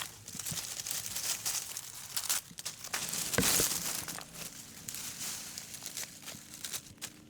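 Rustling and crackling handling noise, a run of small irregular clicks, with a louder rushing scrape about three and a half seconds in.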